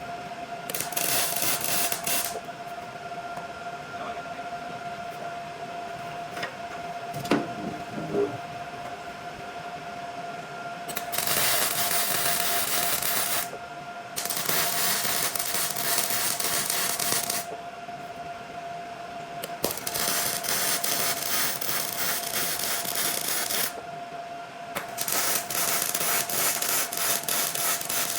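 Arc welding of a steel cart frame: five weld runs of two to four seconds each, each a loud, dense crackle that starts and stops abruptly. A steady tone runs underneath throughout.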